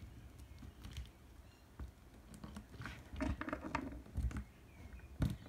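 Faint handling noise: scattered small clicks and rustles, with one louder knock near the end.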